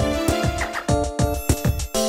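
Polyphonic Samsung SGH-E630 mobile phone ringtone: a synthesized tune of several parts over a steady beat of about four drum hits a second.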